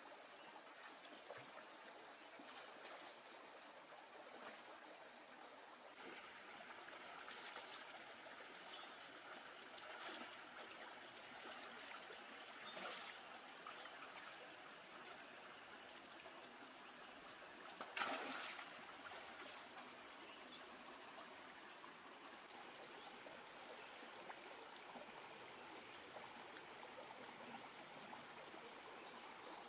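Faint, steady babble of a shallow stream running over rocks, with a few splashes of feet wading through the water, the loudest about eighteen seconds in.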